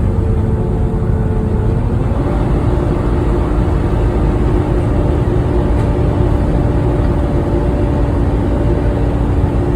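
Volvo B9TL double-decker bus running with a loud 'hoovering' whine over a steady engine rumble. The whine rises in pitch about two seconds in, then holds level.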